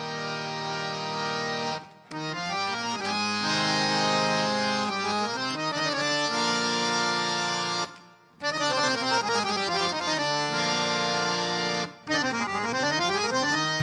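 Instrumental music of sustained chords and melody, breaking off briefly three times, about two, eight and twelve seconds in, with sliding pitches after the second and third breaks.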